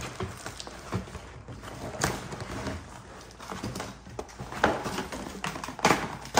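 Cardboard and plastic toy-box packaging being ripped out by hand: irregular crackling and rustling, with a few sharp knocks as pieces come loose.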